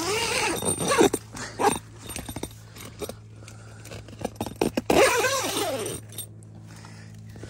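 Handling of a carp bivvy's door panel: tent fabric rustling and zips with scattered clicks. Two short sliding pitched sounds come in, one near the start and one around five seconds in.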